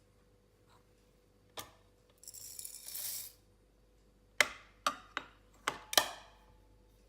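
Coffee beans poured into the hopper of a Niche Zero grinder, a rattling patter lasting about a second after a single click, followed by five sharp clicks as the grinder is readied.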